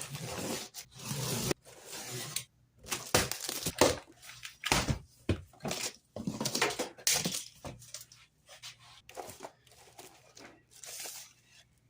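Cardboard and plastic packaging rustling, crinkling and tearing in irregular bursts, with a few knocks, as parts are pulled out of a pressure washer's shipping box.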